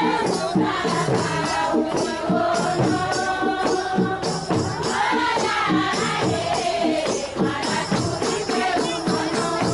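Music: singing over a steady, rattling percussion beat.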